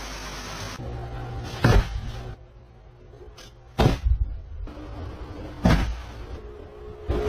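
Dull thumps on a bed, four of them about two seconds apart, as a cat pounces on the blanket. A steady hiss at the start cuts off less than a second in.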